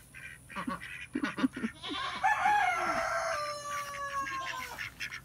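A rooster crowing once, starting about two seconds in: one long call that holds level and drops slightly before it ends. Before it come several short clucking calls from the poultry.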